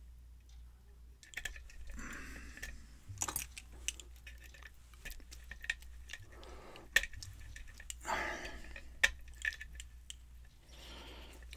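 Lock pick and tension wrench working in a Yale pin-tumbler lock cylinder: light metallic scraping and small clicks as the pins are picked, with two sharper clicks about seven and nine seconds in.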